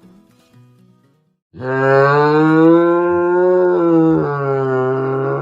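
A loud, long, low moo-like call that begins about one and a half seconds in and is held steadily for several seconds, wavering slightly in pitch near the end.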